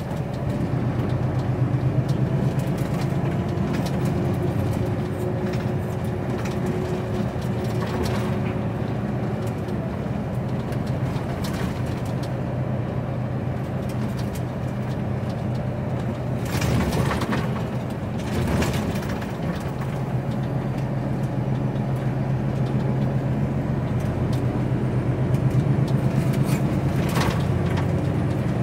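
HGV lorry's diesel engine running steadily under way, heard from inside the cab as a low drone mixed with road noise. A few short knocks come through over it.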